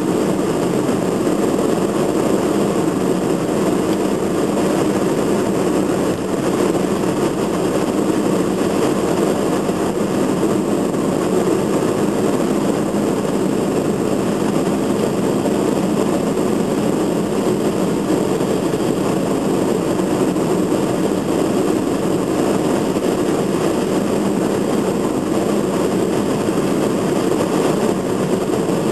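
Steady engine and tyre noise of a car driving at an even speed, heard from inside the cabin.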